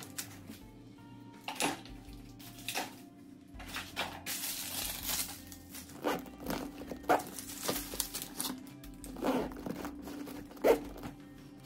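Small items being taken out of a wooden drawer: a series of light knocks and clatters against the wood, with a rustle of paper packaging about four seconds in, over soft background music.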